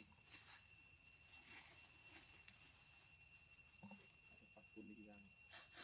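Near silence with a faint steady insect drone, two thin high tones held unbroken throughout. A brief faint voice-like sound comes about four to five seconds in.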